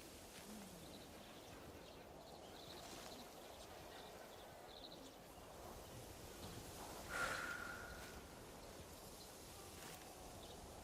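Smoking a Japanese kiseru pipe: faint breathy puffing over a low background hiss with a few small high chirps. About seven seconds in comes one sharp knock with a short ringing tone.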